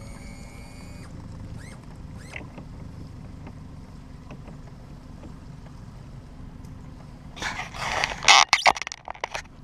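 A steady low rumble with a few short bird chirps near the start, then loud rushing bursts of noise for about two seconds near the end.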